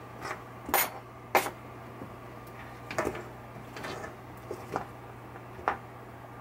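Pinball chime box coils and small metal brackets being handled and set down on a workbench: a handful of light, scattered clicks and knocks over a steady low hum.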